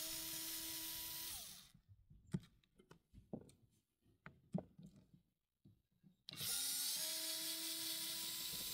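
Denali cordless powered screwdriver whirring as it backs hand-tightened screws out of a carbon-fibre drone top plate. It runs in two steady whines of a couple of seconds each, the first dropping in pitch as it stops, with light clicks and taps between them. Both screws come out without trouble.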